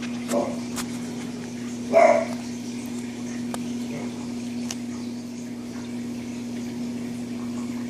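A dog barks: a short, soft bark near the start and a louder single bark about two seconds in, over a steady low hum.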